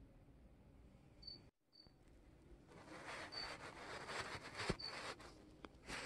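A short, high chirp repeating about every second and a half, like a cricket chirping, over faint room tone. Nearly three seconds in, a rustling handling noise with light clicks rises and becomes the loudest sound.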